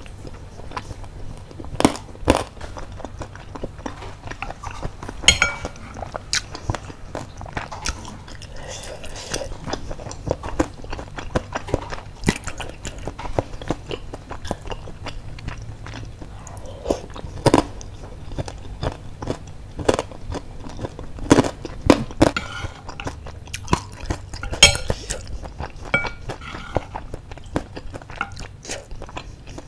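Close-miked eating of baso aci tapioca meatballs and basreng in spicy broth: chewing and biting with wet mouth sounds and irregular sharp crunches and clicks.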